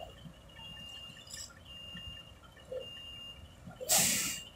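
Heavy truck's warning beeper sounding a steady string of high beeps, each about half a second long, while the truck and crane trailer maneuver round the bend. Near the end comes a short, loud hiss.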